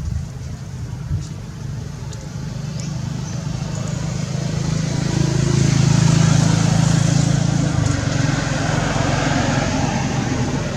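A motor vehicle's engine running steadily, growing louder to a peak about halfway through, then easing off a little.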